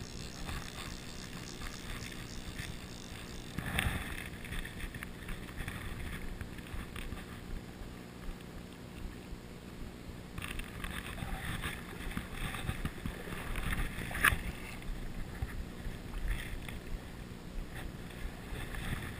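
River current running steadily, with wind noise on the microphone and a couple of brief knocks, one a few seconds in and a sharper one past the middle.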